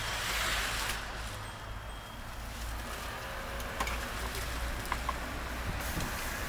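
Steady low rumble of street traffic, with a swell of hissing noise in the first second and a few light clicks about four and five seconds in.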